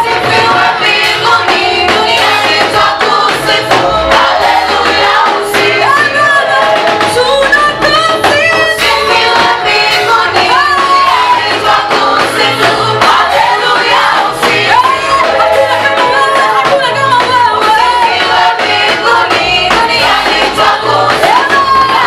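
Church praise team singing a Swahili gospel song through microphones, women's voices leading, over instrumental accompaniment with a steady beat.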